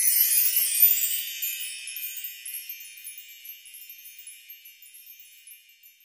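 High-pitched tinkling chimes, like wind chimes, struck in a dense cluster and ringing on. They are loudest in the first second, then fade away slowly until they are barely audible near the end.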